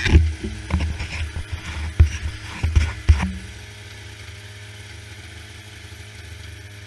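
Polaris snowmobile engine running with a low rumble, broken by several loud knocks and bumps in the first three seconds or so. It then settles into a steady low idle.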